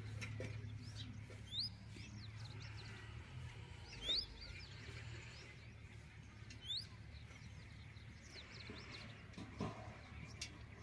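Faint bird calls: three short, high, rising chirps about two and a half seconds apart, over a low steady hum that fades out about a third of the way in.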